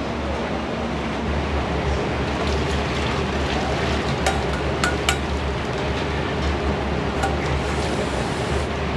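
Steady hum and rush of a ramen-shop kitchen, with a few sharp clinks of tableware: three within about a second, some four to five seconds in, and one more about seven seconds in.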